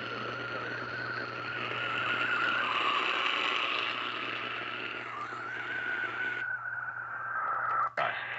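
AM radio static: a steady hiss with a wavering whistle, as from a radio tuned between or off stations. The hiss thins about six and a half seconds in while the whistle goes on, and a sharp click comes near the end.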